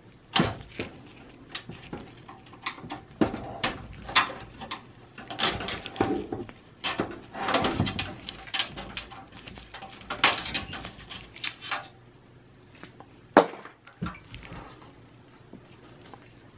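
Sheet-steel PC tower chassis being handled and worked with a flathead screwdriver: irregular metallic clicks, clinks and rattles, with one louder knock late on.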